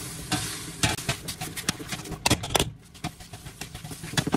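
A utensil clinking and knocking irregularly against a pot as blueberries are stirred and squished for blueberry jam.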